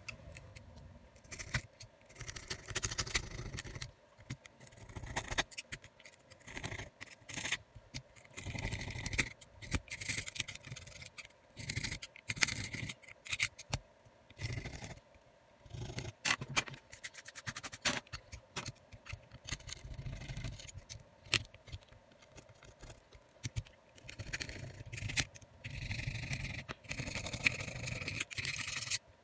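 A small metal spatula scraping over the bare metal mid-frame of a Xiaomi Redmi Note 10S phone. It goes in short, irregular scraping strokes, with sharp little clicks between them.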